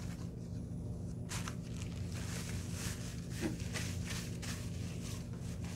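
Paper burger wrapper being crumpled and scrunched in the hands: a run of quick crinkling rustles starting about a second and a half in.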